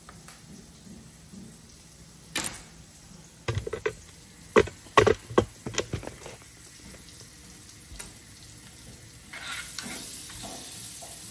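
Kitchen handling noise: a run of sharp knocks and clatters, bunched in the middle, as a plastic colander of cut vegetables is handled. Near the end a steady sizzling hiss starts as food is stirred in a clay tagine on a gas flame.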